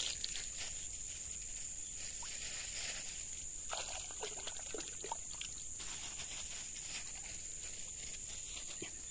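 Outdoor ambience dominated by a steady, high-pitched drone of insects. A few faint short sounds with falling pitch come about four to five seconds in.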